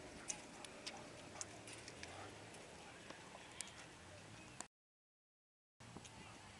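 Near silence: faint background hiss with scattered light clicks, broken by about a second of dead silence a little after the midpoint.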